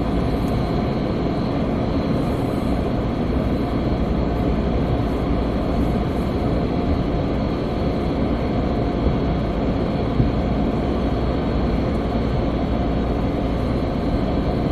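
Steady low rumble and hiss from a stopped car with its engine idling, heard from inside the cabin.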